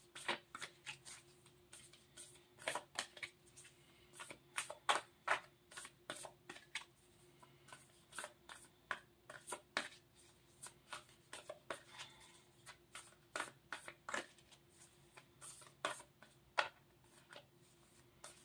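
A deck of Spirit Animal Oracle cards shuffled by hand: a continual run of soft, irregular card slaps and flicks.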